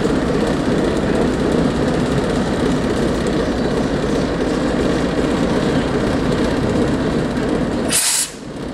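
Steady, loud rumble and hiss of a railway locomotive close by. It cuts off abruptly near the end after a brief burst of hiss.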